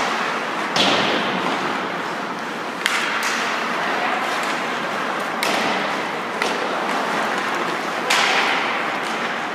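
Ice hockey play in an arena: about six sharp cracks of pucks and sticks striking the ice and boards, each echoing through the rink, over a steady scraping hiss of skates on the ice.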